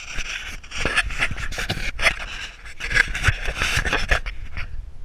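Handling noise on a handheld action camera: irregular scraping and rubbing against the microphone as the camera is held and swung round, over a steady low wind rumble.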